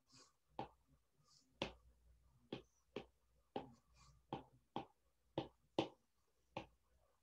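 A stylus tapping and dragging on a tablet's glass screen as a word is hand-written: a string of faint, sharp ticks, one or two a second, uneven in spacing.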